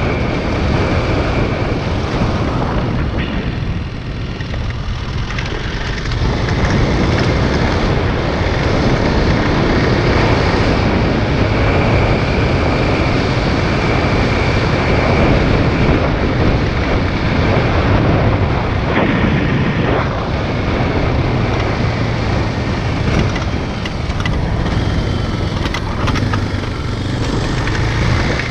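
Motorcycle engine running under way, mixed with wind rushing over a head-mounted camera's microphone. It eases off briefly about four seconds in, then picks up again.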